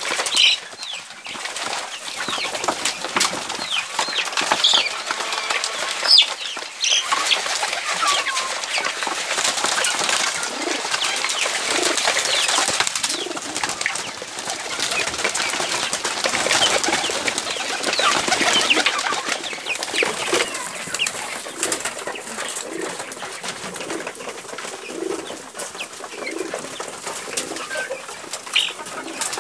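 Mixed flock of young kienyeji chickens and pigeons feeding: many short high chirps throughout, with pigeons cooing in low calls about once a second through the second half, and occasional wing flaps.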